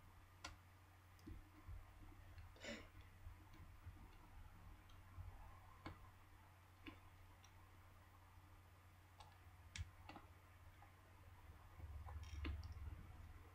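Faint, irregular small clicks and ticks of a precision screwdriver and metal parts as the small screws are taken out of a BlackBerry Bold 9790's internal frame, over a steady low hum.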